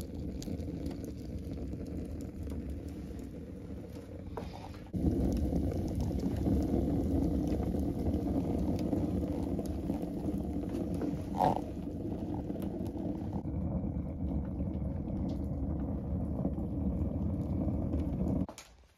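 Wood fire in a rocket heater burning hard, a steady low rushing of the draft through the feed tube and burn tunnel with small crackles. It gets louder about five seconds in, and there is one sharper pop near the middle.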